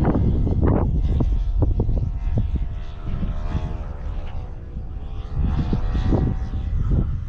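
Nitro glow engine of a radio-controlled P-51D Mustang model plane buzzing in flight, its pitch dipping and rising again in the middle. A heavy low rumble and scattered thumps sit under it.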